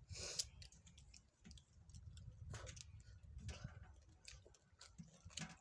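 Faint eating sounds: small clicks and lip smacks of chewing, with short rustles as fingers pick at leftovers on a metal tray.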